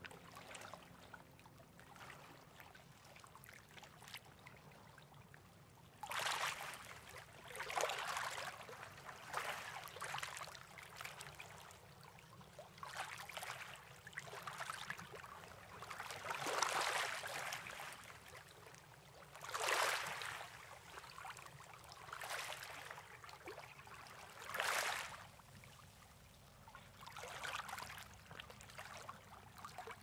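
Gentle waves lapping on a pebble beach, each one a soft rush of water over the stones, arriving about every two seconds; the first few seconds are quieter, before the washes begin.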